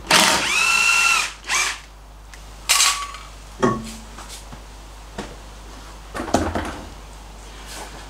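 An impact wrench runs for just over a second, its pitch rising and then falling as it spins a wheel nut off. A few short knocks and clunks follow as the wheel is worked off the hub.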